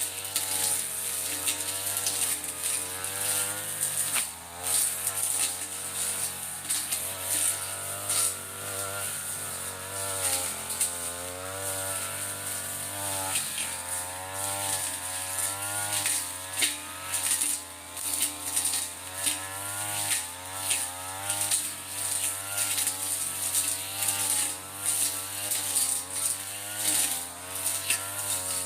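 Mitsubishi TU33 two-stroke brush cutter running under load while cutting bracken fern, its engine pitch wavering up and down as the throttle and the cutting load change.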